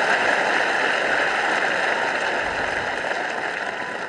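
Tennis crowd applauding after a point, the clapping slowly dying away.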